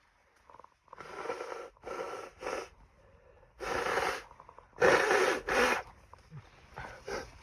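A series of harsh human sneezes, with gasping breaths between them; the loudest comes about five seconds in. The sneezes are set off by nose irritation from bedding dust and are deliberately induced.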